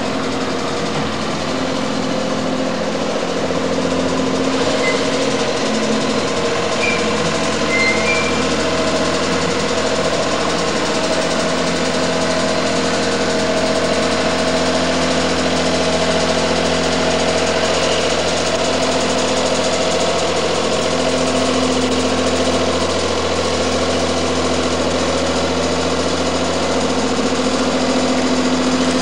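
Diesel engine of a Pemberton tourist tram running at a steady pitch as the tram travels along the line, a continuous drone.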